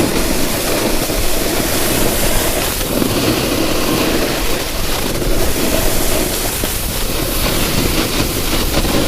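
Snowboard running downhill over icy, choppy snow: a loud, steady scraping rush.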